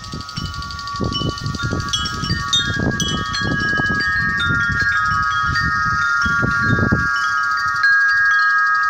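Wind chimes ringing, several sustained tones overlapping as the chimes are struck again and again. Gusts of wind rumble on the microphone underneath and die away near the end.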